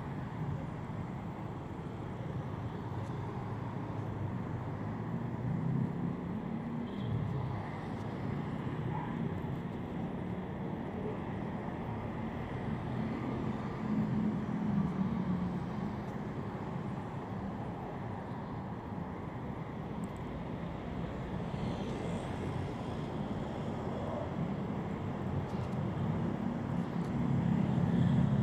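Steady road traffic: cars and motorbikes passing on a busy multi-lane road, a low continuous rumble that grows louder near the end as a vehicle passes close by.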